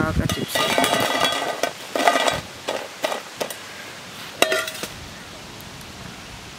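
Crisp fried bitter gourd chips tipped from a wire mesh skimmer onto a stainless steel plate: a clattering rattle of chips and metal scraping on metal, with the plate ringing, for about two and a half seconds. Then a few sharp knocks of metal on the steel plate, each with a short ring, the loudest near the end.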